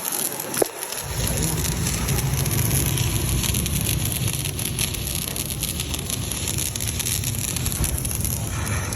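Electric arc crackling steadily as a 3.2 mm stick electrode is burned with an inverter welding machine. The crackle breaks off for under a second near the start, with a single sharp click, then resumes.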